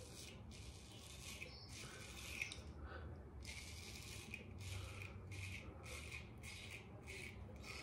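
Straight razor scraping through lathered stubble in short strokes, faint, falling into a run of about two strokes a second in the second half.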